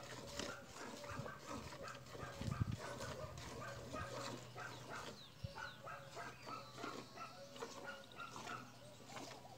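Milk squirting by hand from a cow's teats into a steel pail, about three squirts a second.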